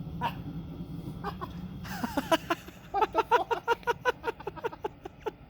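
A low steady hum from the homemade bucket wood stove, fading out about two seconds in. Then a run of rapid, cackling laughter, about five or six bursts a second.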